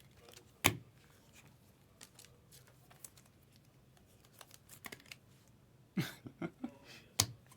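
Trading cards being handled and flipped through on a table: scattered sharp clicks and taps, the loudest just under a second in and a cluster of them around six to seven seconds in.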